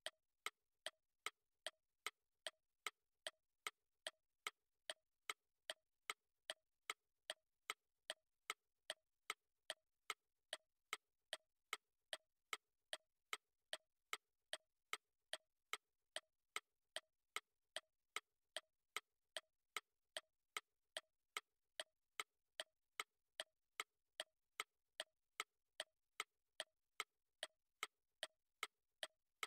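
Clock ticking: sharp, evenly spaced ticks at about two a second, with near silence between them.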